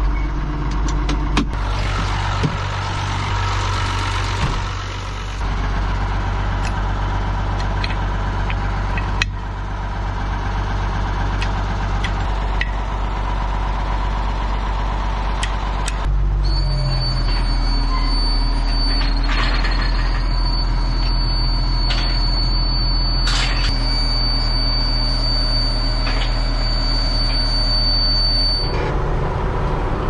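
Ford TW-20 tractor's six-cylinder diesel engine running steadily, its note shifting abruptly a few times. There are scattered clicks and knocks in the first half. From about halfway a steady high-pitched whine runs alongside the engine for some twelve seconds, then stops.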